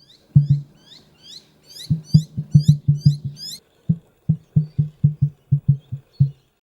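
A series of short, high chirping calls, about three a second, that stop about three and a half seconds in, over a low, rhythmic plucked pattern that runs throughout.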